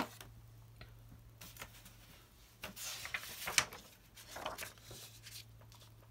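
Sheets of paper being handled and rustled on a desk in a few short bursts, over a steady low hum.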